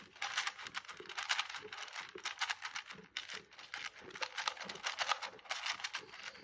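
Dry crackling and crunching: rapid clusters of small clicks, several a second, with short gaps between clusters.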